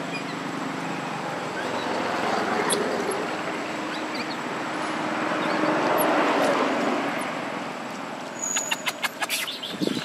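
Steady rushing outdoor background noise that swells and fades twice, with a quick run of sharp clicks near the end.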